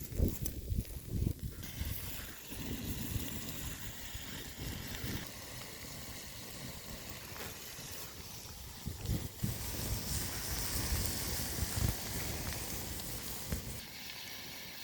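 Pork belly starting to sizzle on a marble slab heated by a wood fire, a steady hiss that swells in the later part. Wind rumbles on the microphone in irregular gusts, heaviest at the start and around the middle.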